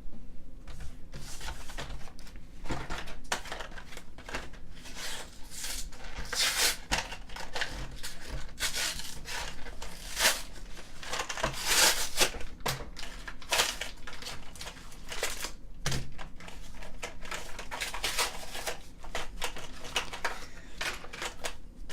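Plastic and cardboard trading-card blister packaging being torn and handled: irregular crinkling and tearing with a run of small crackles and snaps.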